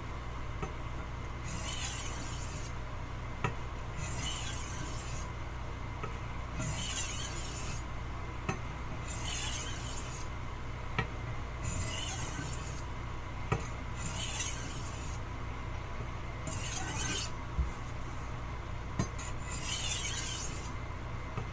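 Wusthof Classic chef's knife blade scraping across a wet sharpening stone in steady repeated strokes, roughly one every two seconds, with a few light clicks between them: the edge being touched up to raise a burr.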